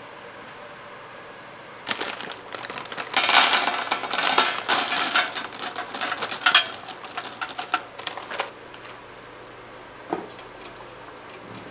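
White chocolate wafers poured from a bag into a stainless steel pan, a dense clattering of small hard discs on metal that lasts about six seconds. Near the end a single knock as the metal pan is set into a steel bowl.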